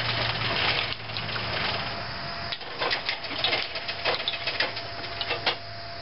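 A steady low mechanical hum, with a run of irregular light clicks and knocks from about two and a half to five and a half seconds in.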